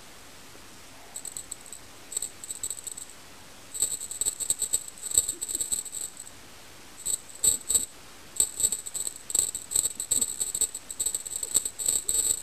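A small bell on a string cat-teaser toy jingling in irregular bursts as a kitten bats and paws at it.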